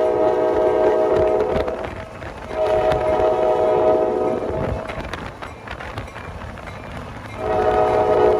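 Multi-chime air horn of the Kansas City Southern business train's lead cab-unit locomotive, sounding a steady chord in three blasts: one ending about two seconds in, a second of about two seconds, and a third starting near the end. It is the horn signal for an approaching grade crossing, over the rumble of the moving train.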